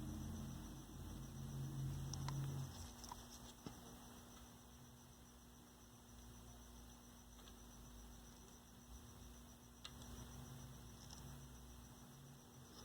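Faint electrical mains hum with a few light clicks; the hum is stronger for the first two and a half seconds, then drops lower.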